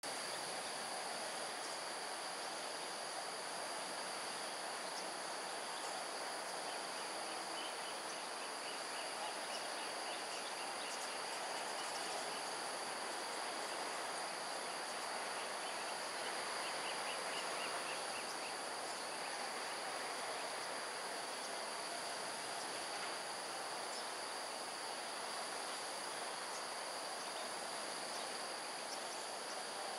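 Steady, high-pitched insect chorus held throughout over an even haze of forest ambience. A faint, fast-pulsing trill comes in twice, about a quarter of the way through and again a little past halfway.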